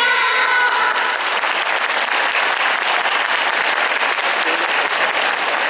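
A girls' vocal group ends a song on a held note about a second in, and the audience breaks into steady applause, many hands clapping.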